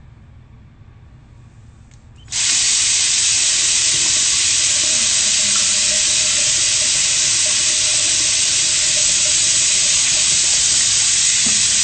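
Bathroom tap running into a sink, a loud steady rush of water that comes on suddenly about two seconds in.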